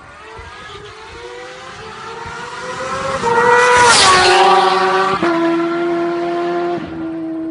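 Supercharged Kawasaki Ninja H2 inline-four at full throttle on a flyby. Its engine note climbs and grows louder as the bike approaches, then peaks and drops in pitch as it passes about four seconds in. Two upshifts follow as it pulls away.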